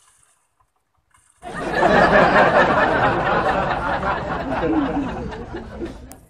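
Crowd laughter, starting about a second and a half in and fading away near the end.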